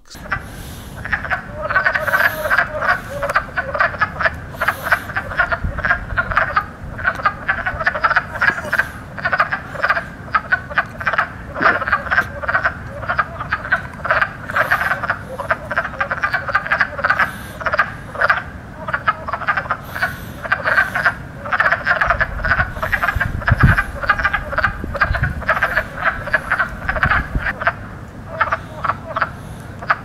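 A chorus of wood frogs croaking: many short croaks overlapping in a dense, continuous stream.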